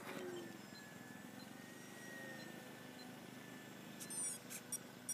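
Distant electric motor and propeller of a Parkzone T-28 Trojan RC plane in flight, a steady thin whine that wavers slightly in pitch. A few short, high chirps and clicks come near the end.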